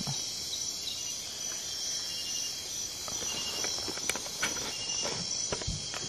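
A steady, high-pitched chorus of night insects such as crickets in the rainforest. A few light ticks and rustles come in its second half.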